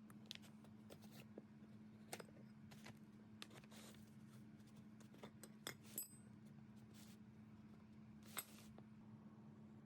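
Faint scattered clicks and light metallic clinks of small hard objects being handled, one near the middle ringing briefly, over a steady low hum.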